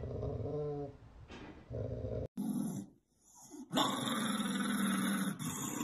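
A golden retriever growling in two short grumbles. After a cut, a small white dog growls louder and without a break from a little past halfway.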